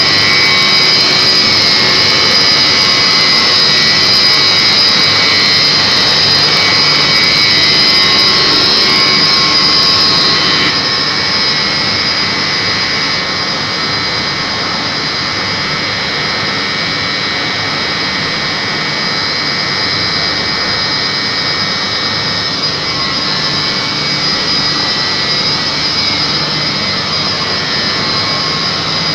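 Electric motors driving the chiller plant's chilled-water pumps, running: loud, steady machine noise with a high whine, easing off slightly about ten seconds in.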